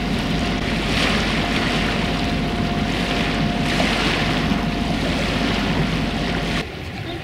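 A sailing yacht's diesel engine running steadily under way, with water rushing along the hull in surges about a second and about four seconds in. The low engine rumble drops out abruptly near the end.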